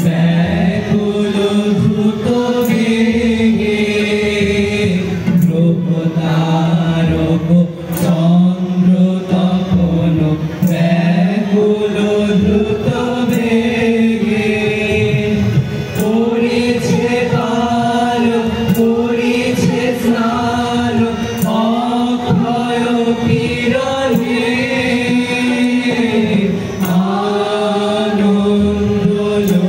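A group of boys singing a song together in unison through microphones, with harmonium accompaniment.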